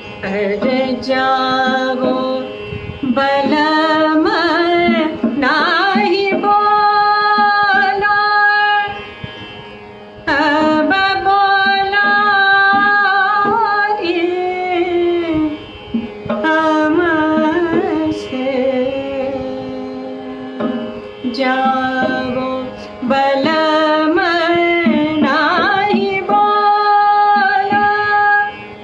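A woman singing a thumri in raag Khamaj, in long ornamented phrases that glide and waver in pitch, with short breaths between them, over a steady drone.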